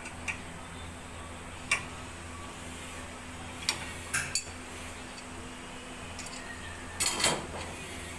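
Metal tools and parts clinking in short, scattered knocks, with a brief clatter near the end, over a low steady hum.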